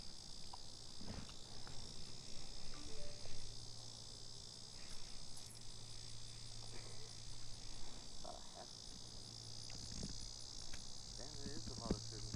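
Steady high-pitched insect chorus, with a few faint knocks and a low steady hum underneath.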